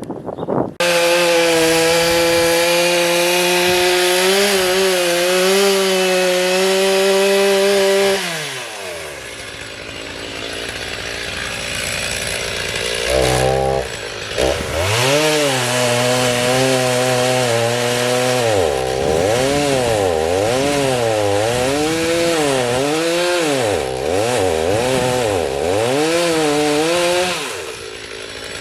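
Two-stroke chainsaw held at full throttle, cutting wood, then dropping to idle about eight seconds in. After a quieter stretch and one short blip, it is revved up and down in quick repeated surges before settling back near the end.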